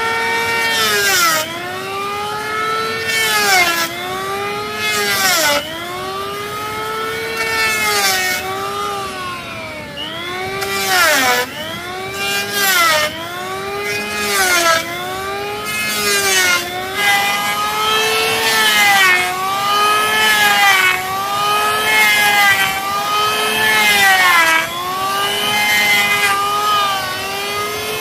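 Corded electric hand planer shaving a rough-sawn wooden plank: a high motor whine that sags in pitch each time the blades bite into the wood, then recovers, over many short passes, each with a rasping cutting noise.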